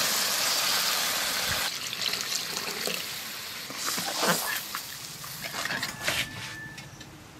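Water pouring from a steel bowl into a hot kadai of fish curry for about the first two seconds. Then a metal spatula stirs the curry, with short scrapes and knocks against the pan.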